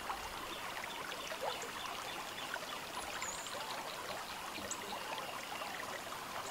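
Running water, like a small stream, babbling steadily with many small gurgles.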